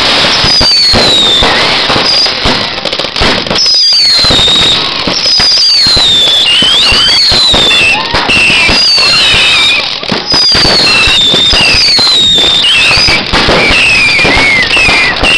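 Fireworks going off at close range: a dense run of cracks and bangs, with many high whistles gliding down in pitch, loud throughout.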